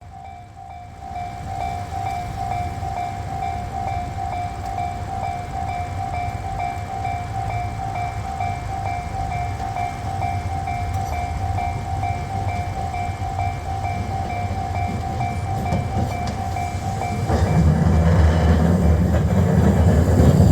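Level crossing alarm ringing in a steady repeating pattern while a tram's rumble grows. About three-quarters of the way through, Kagoshima City Tram car 1011 passes over the crossing with a much louder rumble that covers the alarm.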